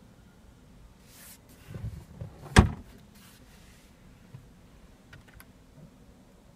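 Glove box lid of a 2015 Jaguar F-Type R Coupe being pushed shut: some handling rustle and soft knocks, then one sharp thud as the lid latches about two and a half seconds in, with a few faint clicks later.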